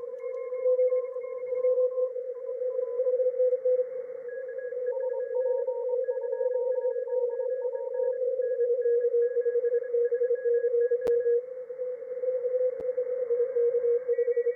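Several amateur radio stations sending Morse code at once, heard through a shortwave software-defined radio receiver: one strong, low keyed tone and several fainter, higher-pitched tones keying over it, over band hiss. This is a DXpedition pileup, with stations calling the expedition.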